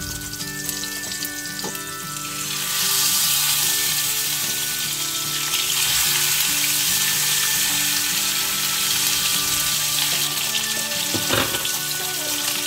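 Salmon steaks frying in olive oil with garlic cloves in a frying pan, a steady sizzle that grows louder a couple of seconds in.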